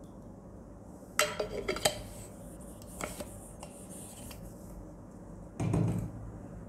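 Metal water bottle clinking and tapping as it is handled and set down after pouring, with a run of sharp ringing clinks about a second in and a few lighter taps after. A louder, duller knock comes near the end.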